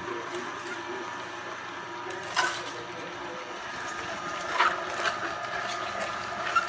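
Slow juicer motor running with a steady whine, broken by four sharp clicks or knocks.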